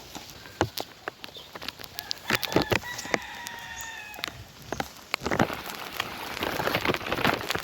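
A rooster crows once, about two and a half seconds in: a drawn-out call that falls in a few steps. Scattered sharp knocks and clicks sound around it, with a stretch of rushing noise in the second half.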